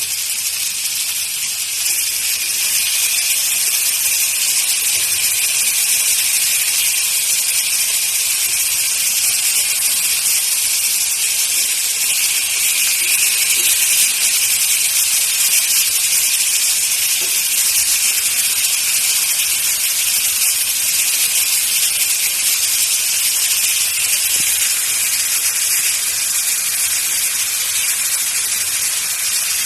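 Halved tomatoes and garlic sizzling in hot oil in a covered frying pan: a steady hiss.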